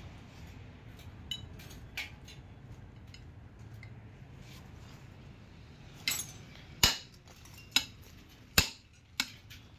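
Hammer striking a steel drift set in the bore of a harvester track roller, ringing metallic clinks. A couple of light taps early on give way, about six seconds in, to about six sharp blows under a second apart.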